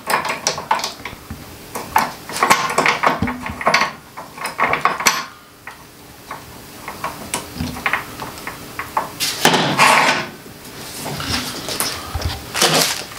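Metal clinks, clacks and knocks as the steel vise and quick-release clamp of an Evolution 15-inch metal-cutting chop saw are worked by hand, with a louder clatter about three-quarters of the way through.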